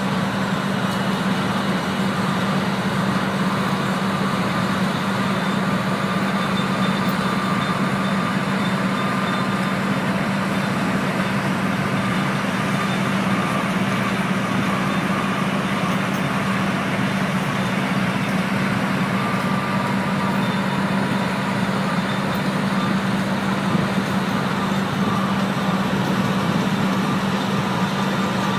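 Oil drilling rig running: a steady machinery drone with one strong low note that holds its pitch throughout, without a break.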